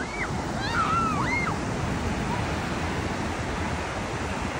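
Ocean surf breaking and washing up a sandy beach, a steady rush. A few short distant voices call out in the first second and a half.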